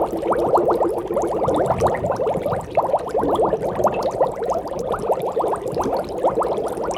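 Aquarium water bubbling continuously: a rapid, unbroken stream of air bubbles rising and popping, many small gurgles a second.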